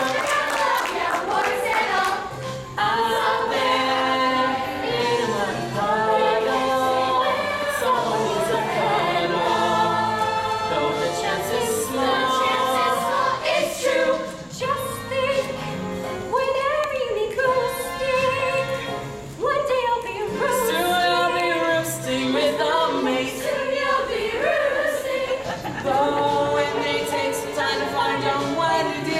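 A choir of voices singing a song from a stage musical, with several parts in harmony.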